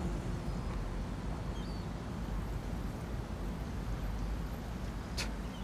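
Steady low background rumble of ambience, with a single sharp click about five seconds in.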